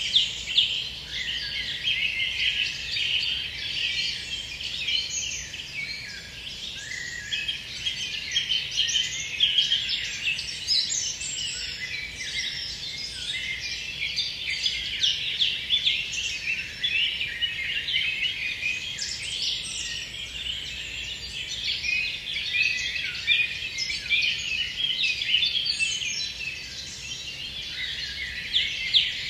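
Many songbirds singing at once in a dense, continuous forest chorus of overlapping chirps, whistles and trills.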